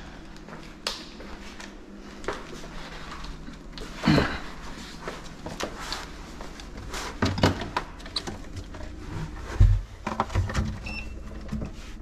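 Scattered knocks, clicks and rustles of gloved hands handling a clamp meter's test leads and circuit wires inside a cabinet, with a few louder thumps about 4, 7 and 9.5 seconds in, over a faint steady low hum.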